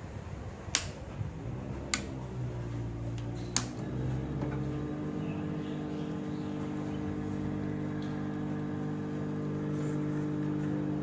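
Three sharp clicks, then a hot air rework gun's blower starting up and settling into a steady, even hum, blowing hot air on a phone's edge to soften the screen adhesive.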